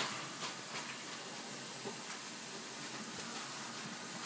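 Steady, even hiss of background noise with no distinct events: room tone and microphone noise.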